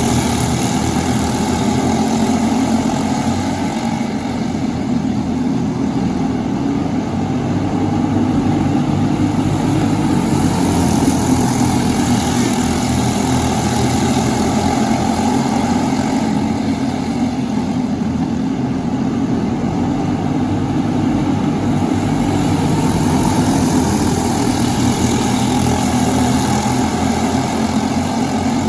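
Briggs & Stratton LO206 four-stroke kart engines running on track, a steady engine drone that swells and eases every ten seconds or so.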